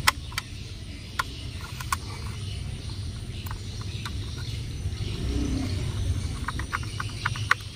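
Scattered small plastic clicks and taps, more of them near the end, as a small screwdriver works the battery cover of a battery-powered plastic toy train being closed over fresh batteries. A steady low rumble runs underneath.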